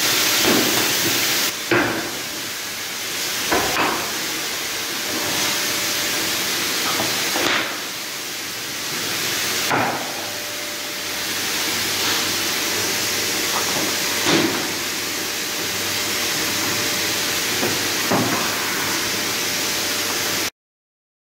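Profile wrapping machines running on a factory floor: a steady hiss of machinery with occasional short knocks, until the sound cuts off near the end.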